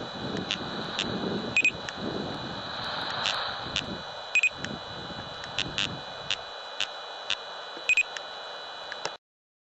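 Laser speed gun beeping three times, about three seconds apart, as it fires three shots, over a steady high whine and scattered clicks. The sound cuts off suddenly near the end.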